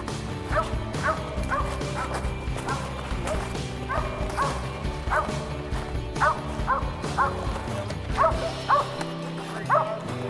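A squirrel dog barking steadily at about two barks a second: the chop of a dog treeing a squirrel. Background music runs underneath.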